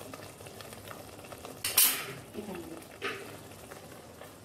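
Food sizzling in oil in a frying pan, with a sharp clink of a utensil against the pan a little under two seconds in and a lighter knock about three seconds in.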